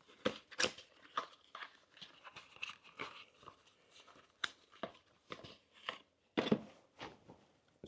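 Packaging rustling and crinkling with scattered small clicks as a USB-C cable is unwrapped and handled, with one louder rustle about six and a half seconds in.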